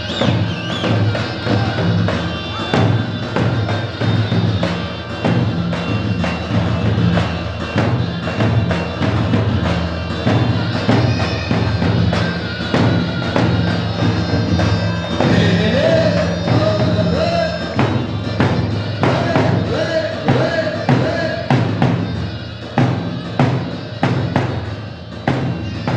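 Dance music with a steady drum beat over low sustained tones, a held melody line coming in about halfway through.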